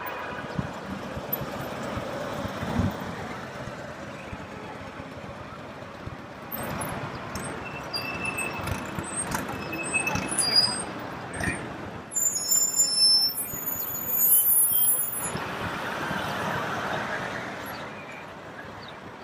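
City street traffic with vehicles passing at low speed. For a few seconds past the middle, brakes give a high-pitched squeal.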